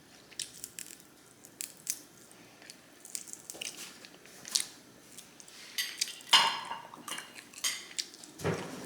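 Close-miked eating: utensils clicking against a dish, with biting and chewing in short, irregular crackles. It is loudest about six seconds in, and there is a duller thud near the end.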